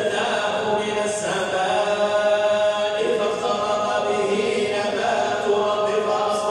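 Quran being recited in a slow melodic chant, with long held notes that step to a new pitch between phrases.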